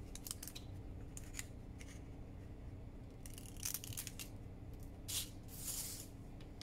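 Scissors snipping through a folded parchment baking cup: a handful of short, sharp cuts spread over the first four seconds, then a longer rustle of paper about five seconds in.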